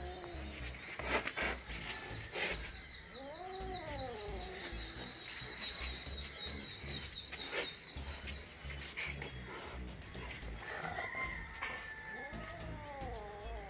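Two short animal calls, each rising then falling in pitch, about three and a half and twelve seconds in, over a fast high trill that stops about nine seconds in, with a few sharp clicks.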